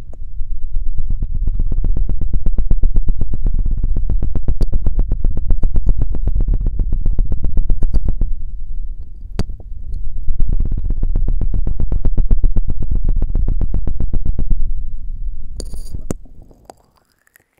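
Very fast, even rubbing and knocking of a feather rod on an ASMR microphone, loud and heavy in the low end, in two long runs with a brief pause a little past halfway and stopping shortly before the end.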